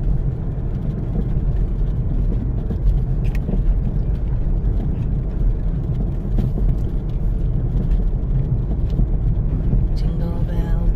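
Steady low rumble of an all-wheel-drive SUV driving through deep snow, heard from inside the cabin: tyre, road and engine noise.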